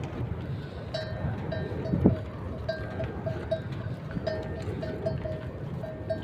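Neck bells on dairy livestock clanking repeatedly, a short ringing note at the same pitch a couple of times a second as the animals move, with one dull thump about two seconds in.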